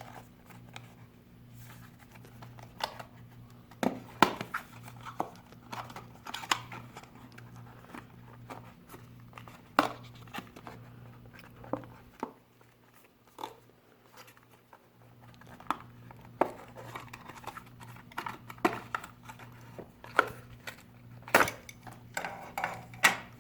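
Unboxing handling noise: cardboard box and plastic packaging of a pair of 80mm PC fans being opened and lifted out, with scattered clicks, knocks and crinkling. A steady low hum runs underneath and stops for a few seconds about halfway through.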